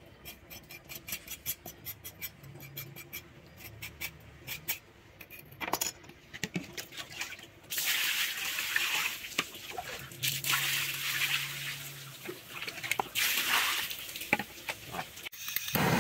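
A blade scraping bristles off a pig's head in many short, quick strokes. About halfway through, water is poured over the head and splashes loudly as a hand rubs it clean.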